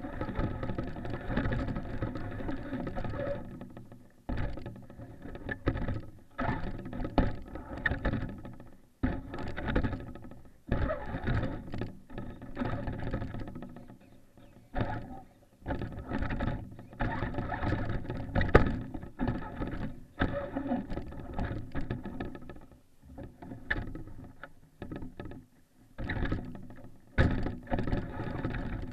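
Onboard sound of a Traxxas Stampede RC truck driving through snow: motor and gear whine in repeated bursts of throttle, cutting out briefly between them, with knocks from the chassis. The sharpest knock comes about two-thirds of the way in.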